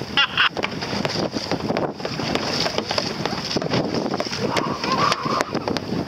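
Wind buffeting the microphone over choppy open water, with the rush and splash of waves.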